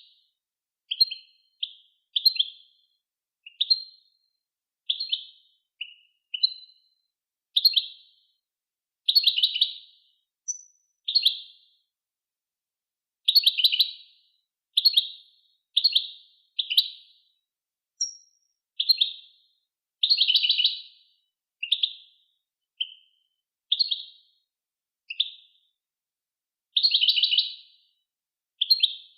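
A songbird singing the 'Wedania' song style from a tutoring tape made to teach young caged birds. It sings short, separate twittering phrases about once a second with brief silences between.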